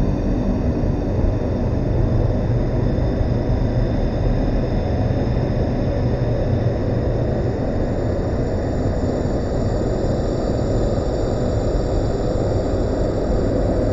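Dark ambient drone music: a dense, steady low rumbling drone with faint sustained high tones above it, without beat or rhythm.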